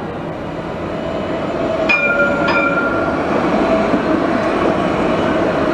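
Alstom Citadis light-rail tram rolling past on street track, its running noise growing louder as it nears. About two seconds in, two ringing bell dings about half a second apart, the tram's warning gong.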